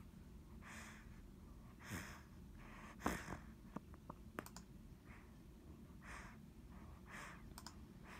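A sleeping pet snoring softly, in faint breathy puffs about once a second, with a few small clicks among them.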